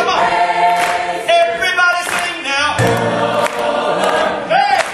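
Adult gospel choir singing, with long held notes.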